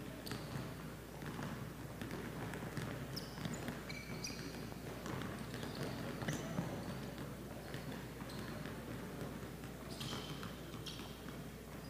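Basketballs bouncing on a hardwood gym floor and players' sneakers squeaking and landing as they drive and hop to the basket. The knocks of the bounces and steps come irregularly throughout, with short high squeaks scattered among them.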